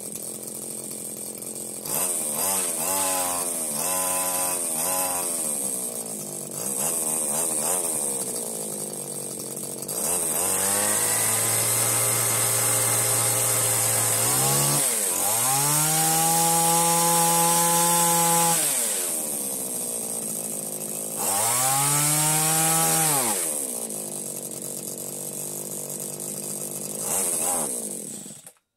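22cc two-stroke engine of a Gardenline BG-35011 hedge trimmer idling with a few quick throttle blips, then revved up and held three times, dropping back to idle in between. This is a test run after its carburetor and fuel line were replaced.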